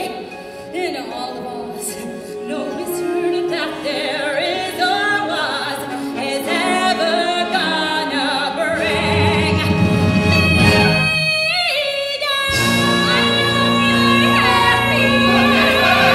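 Live musical-theatre song at its climax: a female lead belting long, wavering sung notes over the pit orchestra. About twelve seconds in the orchestra comes back in full under a long held final note.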